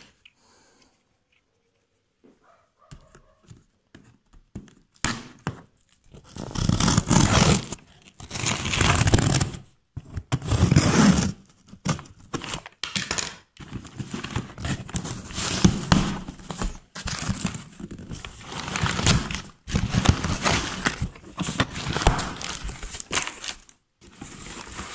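Cardboard shipping box being torn open by hand: ragged ripping and scraping of tape and cardboard in stretches of a second or two, starting about five seconds in after a near-quiet opening.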